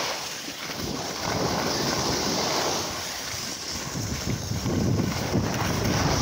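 Wind buffeting the microphone of a phone carried by a moving skier, with a gusty low rumble over the steady hiss of skis sliding on packed snow.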